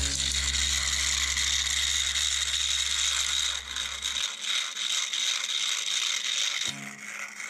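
Battery-powered toy train engines with their small motors and plastic gearboxes running while pushed head-on against each other, giving a steady rattling gear whir; the engines are stalled, their wheels held against the plastic track. The whir drops off sharply about six and a half seconds in.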